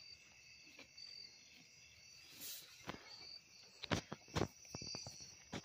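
Insects chirping steadily, a repeating high chirp about twice a second over a steady high hum, with a few sharp clicks or knocks about four seconds in and again near the end.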